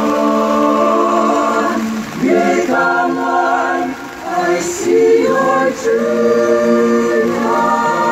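High school choir singing a cappella in harmony: a long held chord that releases about two seconds in, then new sung phrases with short breaks between them.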